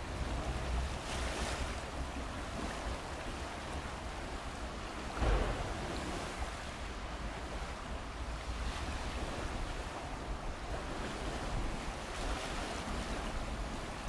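Flood-swollen stream rushing steadily, with wind rumbling on the microphone and one brief louder rumble about five seconds in.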